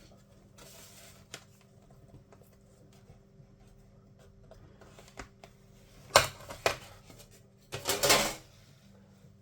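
Tools and small parts handled during a laptop teardown: faint rustling and ticks, two or three sharp clicks about six seconds in, then a short clatter about eight seconds in.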